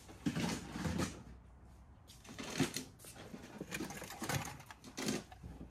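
Vintage toy train cars being handled: irregular clicks, knocks and rustling as pieces are picked up, turned over and set down.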